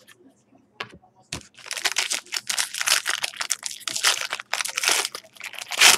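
Clear plastic card holder crinkling and rustling as a trading card is handled and slid into it: two sharp clicks, then a dense, rapid crackle that is loudest near the end.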